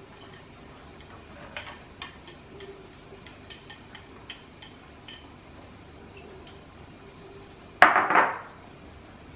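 Chopsticks tapping and scraping against a ceramic plate and bowl, a run of light clicks, as diced tomato is pushed into a bowl of spinach. Near the end comes one louder, ringing clatter of ceramic.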